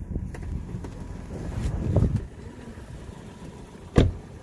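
A 2014 Toyota Tacoma's door thumps shut about four seconds in. Before it there is a steady low rumble and some shuffling as someone climbs out of the cab.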